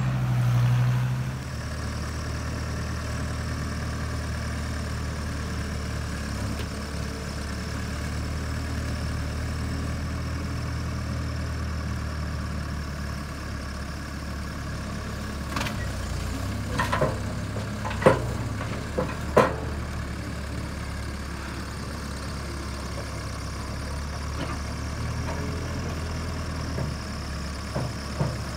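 Backhoe loader's diesel engine running steadily while it works a stump into a dump truck. About halfway through comes a quick run of four or five sharp knocks and clanks.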